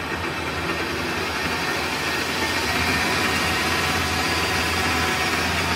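WEISS WBL210D bench lathe running with no load, its 1100 W brushless motor driving the spindle and chuck. The spindle speed is being turned up from about 400 to about 1800 rpm, so the running sound grows louder over the first few seconds and then holds steady.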